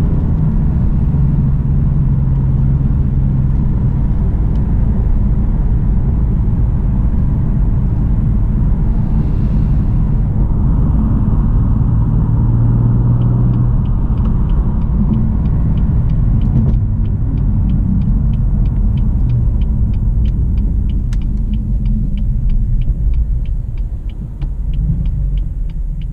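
BMW M3 F80's twin-turbo inline-six running at low, steady cruising revs with a deep rumble. About halfway through, a regular light ticking of two or three a second joins in, and the engine settles quieter near the end.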